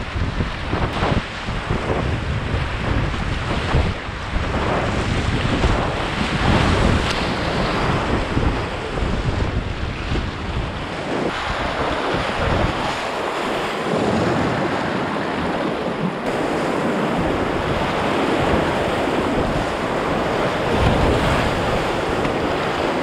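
Loud rushing of whitewater rapids, heard from a kayak running through them, with wind noise on the microphone. The low rumble is heavier in the first half and eases to a steadier rush after about fourteen seconds.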